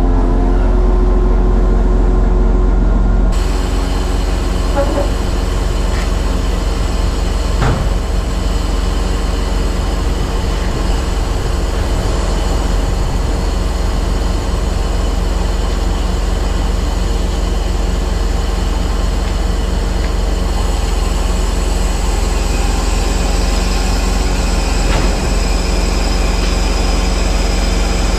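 Mercedes-Benz Actros truck's diesel engine running steadily with its loader crane's hydraulics working as the crane lifts a load. A continuous loud mechanical hum that grows brighter about three seconds in, with a few faint clicks.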